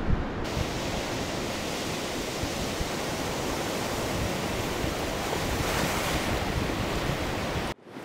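Ocean surf rushing steadily, with wind buffeting the microphone. The rush swells briefly a little after five seconds in, then cuts off abruptly near the end.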